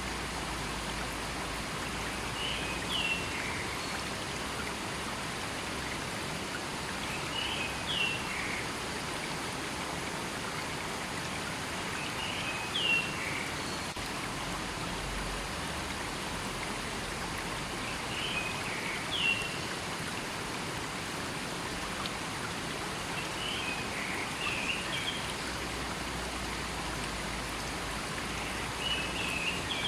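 River water flowing steadily, with a bird repeating a short call phrase about every five seconds.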